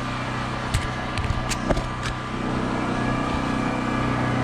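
An engine running steadily at an even idle, with a few sharp clicks between about one and two seconds in.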